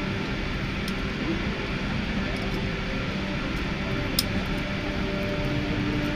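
Steady airliner cabin noise: an even hum with several steady tones from the aircraft's engines and air-conditioning, heard from inside the cabin. A single sharp click sounds about four seconds in.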